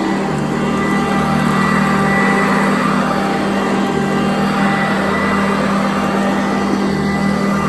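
Old Sanitaire vacuum cleaner running steadily on carpet: a constant motor drone with a few steady whining tones over the rush of its suction.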